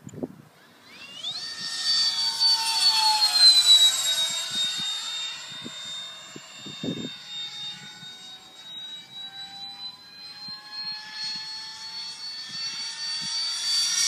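ParkZone Habu 2 electric ducted-fan jet at full throttle on a 5S pack, its high fan whine swelling in about a second in and dropping in pitch as it flies past. It then fades and grows louder again near the end as the jet comes around for another pass.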